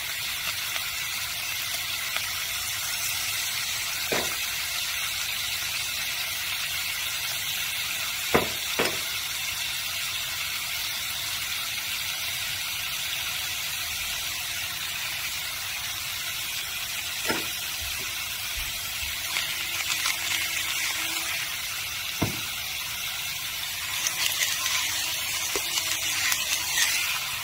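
Raw ground beef sizzling in a hot frying pan: a steady, high hiss. There are a few sharp taps, and the noise grows busier and uneven near the end as the meat is worked with a utensil.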